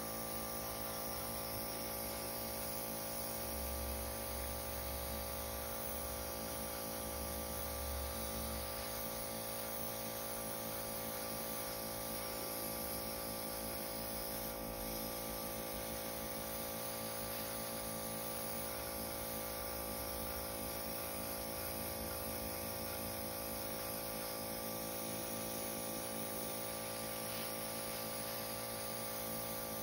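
Fengda FE-136K airbrush hissing steadily as it sprays paint, over the steady hum of its air compressor.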